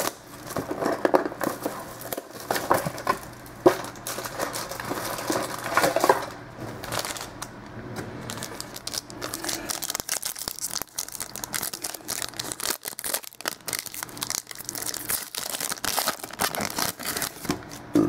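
Foil wrapper of a 2013 Elite football card pack being torn open and crinkled by hand. It makes a dense run of small crackles that is busiest in the second half.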